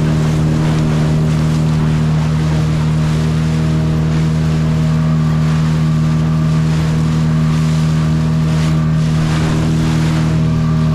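Speed boat's motor running steadily at constant speed, holding one even pitch, over a rush of wind and water.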